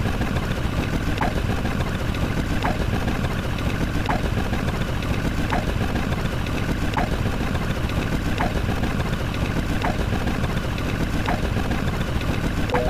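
A steady engine-like rumble, with a short chirp repeating regularly about every second and a half.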